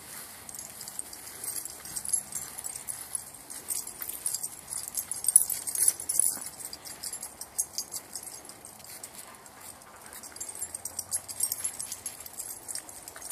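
Dog tags and leash clips on four Cairn Terriers jingling in an irregular light clinking as the dogs trot along on their leashes, busiest about five seconds in and again near the end.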